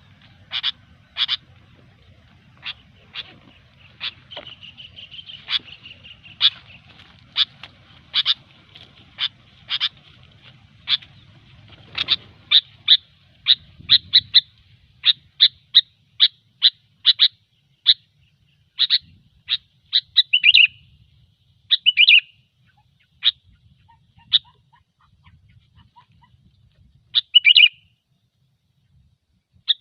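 Sooty-headed bulbul (kutilang) calling over and over in short, sharp notes, about one or two a second, with a few lower, burry notes in the second half.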